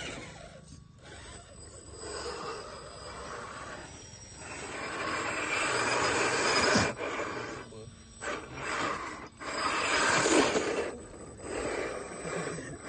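1:10-scale RC rock crawlers' electric motors and geared drivetrains whirring in bursts as the trucks climb a loose dirt slope, tyres scrabbling in the soil.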